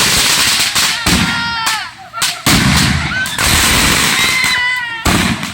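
Fireworks going off out of control: a string of sudden loud blasts about a second or two apart, each trailing into a hissing crackle. High-pitched falling squeals are heard twice between the blasts.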